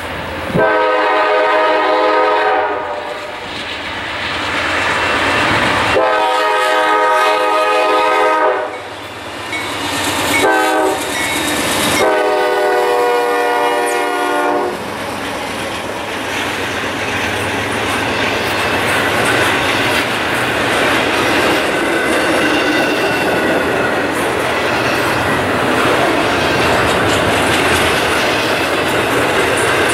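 Horn of a Norfolk Southern freight locomotive sounding the grade-crossing signal: two long blasts, a short one, then a long one. The locomotive and its intermodal cars then pass close by in a steady rush of noise, wheels clicking over the rail joints.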